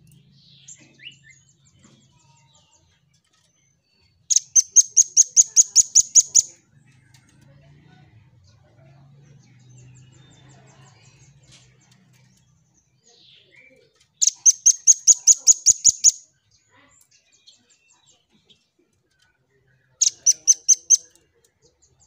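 Velvet-fronted nuthatch calling in three rapid runs of sharp, high repeated notes, about five or six a second: two runs of roughly two seconds each, and a shorter one near the end.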